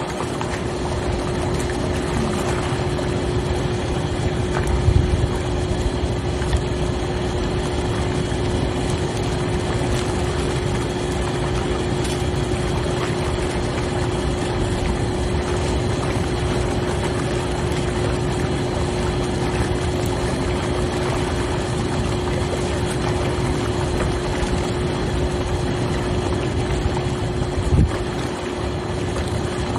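Hot tub jets running: a steady churning of water with the pump's constant hum underneath, plus a couple of brief low thumps.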